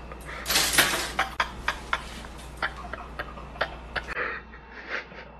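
Shattered glass clicking and crackling: a dense run of small clicks about half a second in, then scattered single clicks that thin out after about four seconds.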